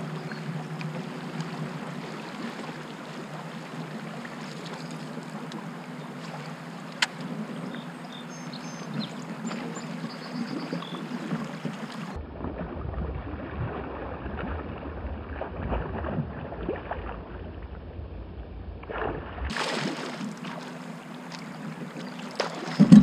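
Water lapping against a fishing kayak's hull, with wind on the microphone. Under it runs a low steady hum that drops out for several seconds midway. One sharp click comes about seven seconds in.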